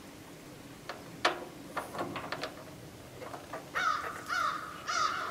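A crow cawing several times in quick succession, the caws about half a second apart, starting a little over halfway through. Before that come a few sharp clicks.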